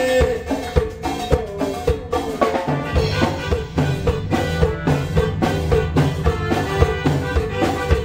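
A band playing an instrumental stretch of a cumbia medley: drum kit keeping a steady beat under a bass line and melody instruments, with no singing.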